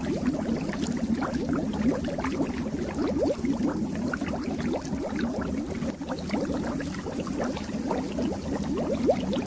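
Fish-tank water bubbling: a dense, steady stream of small bubbles rising and popping over a low hum.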